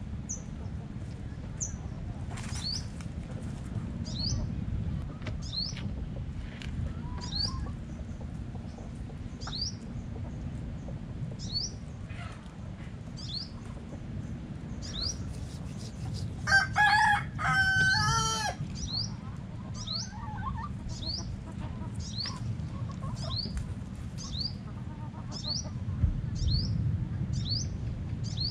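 A rooster crows once, loud, for about two seconds a little past the middle. Under it a small bird gives a short, sharp chirp about once a second, over a steady low background rumble.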